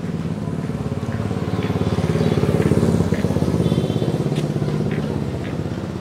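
A motorbike engine running, growing louder to a peak about halfway through and then fading away as it passes.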